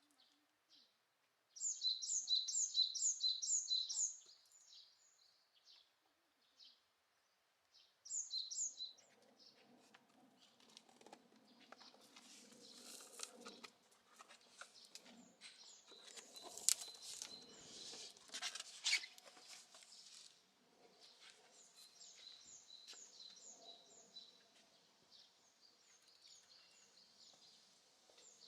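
A small songbird singing quick runs of repeated high notes, about six a second, with other bird chirps around it. In the middle stretch there is a low rustling with a few sharp clicks.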